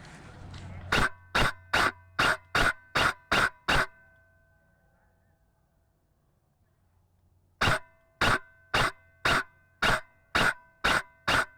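An airsoft DMR rifle firing semi-auto in two strings of about eight shots each, roughly two to three shots a second, with a short pause between the strings. Each shot is a sharp crack followed by a brief ringing tone.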